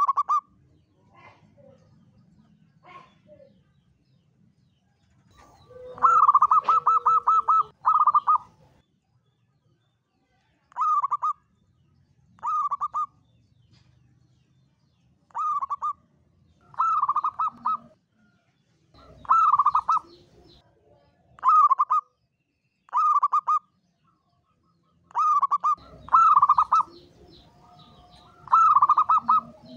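Zebra dove (perkutut) cooing in a series of rapid, pulsing staccato phrases, repeated about a dozen times at intervals of one to three seconds, the longest phrase about six seconds in.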